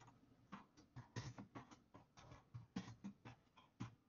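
Computer keyboard being typed on in a quick, uneven run of faint keystrokes, a project name being entered letter by letter.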